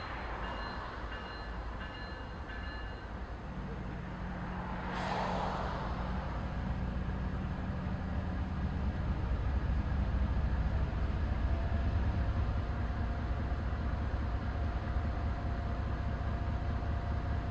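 Diesel-electric freight locomotive rumbling steadily as it slowly approaches, growing louder about halfway through. A brief rushing noise comes about five seconds in, and faint repeating high tones sound in the first few seconds.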